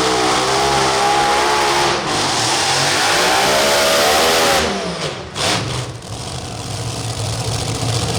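Pulling engine at full throttle, its pitch wavering up and down, then dropping off sharply about four and a half seconds in as the throttle comes off. A brief loud burst follows, and the engine runs on lower and steadier.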